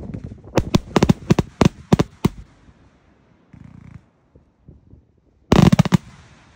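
Multi-shot firework cake firing: a rapid string of sharp bangs over the first couple of seconds, a brief hiss, then a dense cluster of loud cracks near the end, the loudest moment, dying away.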